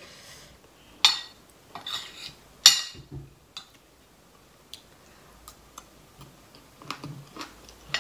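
Spoon clinking and scraping against a large ceramic bowl as curry is scooped up, with two louder clinks about one and three seconds in, then faint small clicks.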